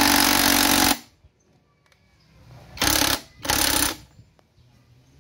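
DeWalt 20V XR cordless impact wrench hammering on a nut at the end of a manual gearbox shaft: one burst that stops about a second in, then two short bursts close together near the three-second mark.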